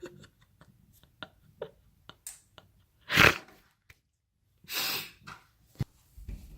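Small clicks and knocks of a smoke detector being handled, with two short rushes of noise about three and five seconds in and a sharp knock near the end.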